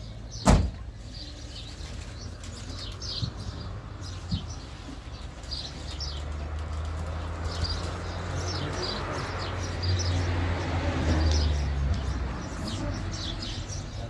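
A car door slams shut about half a second in. From about six seconds a vehicle engine's low rumble builds, is loudest around ten to twelve seconds, then fades, while small birds chirp throughout.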